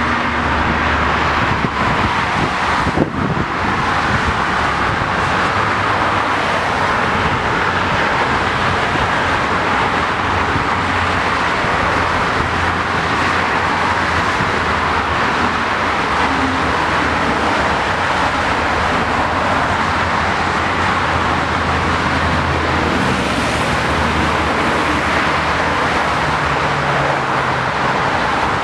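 Steady noise of fast highway traffic: the tyres and engines of cars and trucks passing on a multi-lane road.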